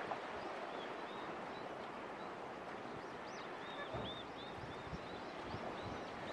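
Faint outdoor ambience: a steady soft hiss with many short, high, arched chirps of a small bird repeating throughout, and a soft low knock about four seconds in.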